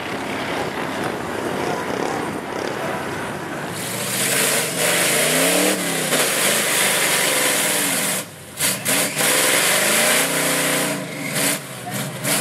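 A mud truck's engine running hard through a mud pit, then a lifted square-body Chevy Blazer on big mud tires revving hard in deep mud, the engine pitch climbing and falling twice, with a few sudden dips in loudness.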